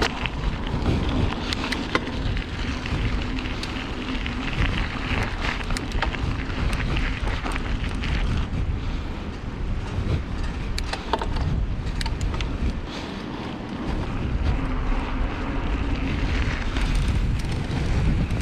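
Wind rushing over the microphone and a low rumble of tyres rolling while a hardtail mountain bike is ridden, with scattered sharp clicks.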